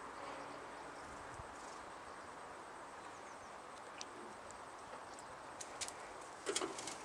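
Quiet outdoor background hiss with a few scattered faint clicks, then a short cluster of sharp clicks about six and a half seconds in.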